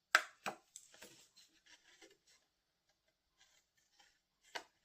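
Handling of cardstock paper: two sharp taps followed by light rustling for a couple of seconds, then one more sharp tap near the end.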